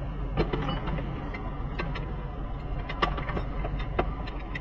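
Hand tools clicking and clinking against car front-suspension hardware: scattered sharp metallic knocks at irregular intervals over a steady low hum.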